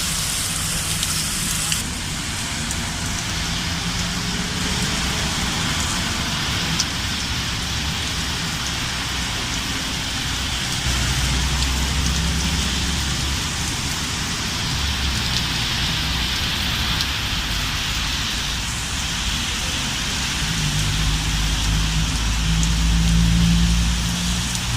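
Heavy rain pouring steadily. A low rumble swells about halfway through and again near the end.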